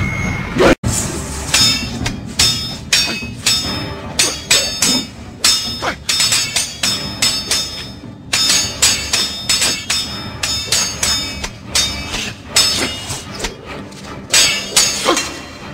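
Rapid, irregular series of sharp metallic clangs like swords clashing in a fight, many with a short ringing tail, over background music.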